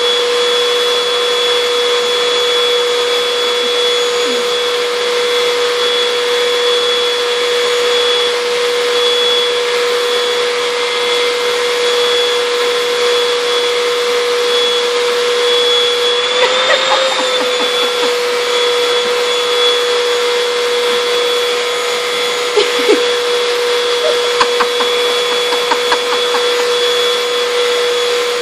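Vacuum cleaner running steadily with a constant high whine. About 17 seconds in its pitch briefly rises and wavers, and a few light knocks come later.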